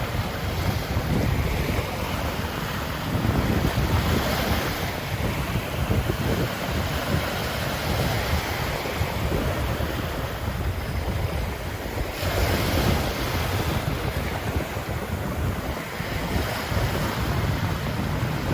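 Ocean surf breaking and washing onto a sandy beach, with louder washes about four seconds in and again about twelve seconds in. Wind buffets the microphone throughout as a low rumble.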